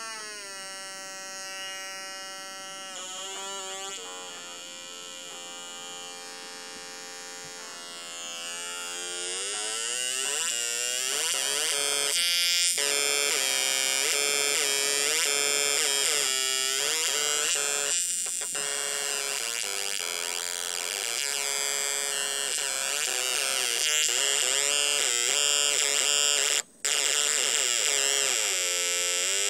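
Atari Punk Console square-wave synth circuit buzzing through a small oval speaker, its pitch gliding and stepping up and down as the potentiometer knobs are turned. It gets louder about ten seconds in and cuts out for a split second near the end.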